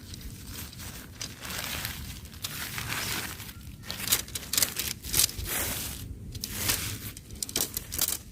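Irregular rustling and crinkling with scattered sharp clicks.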